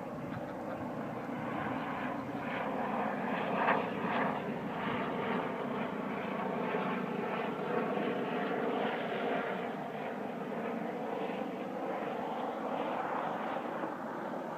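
An aircraft engine droning as it passes overhead, swelling over the first few seconds and then slowly easing off.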